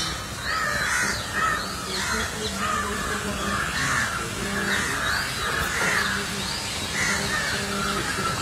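Harsh bird calls repeated over and over, roughly two a second.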